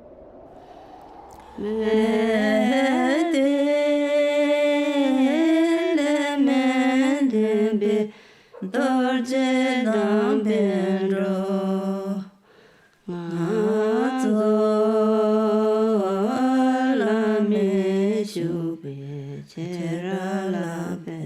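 A single voice chanting or singing in long held notes that step between pitches, in three phrases broken by short pauses about eight and twelve seconds in.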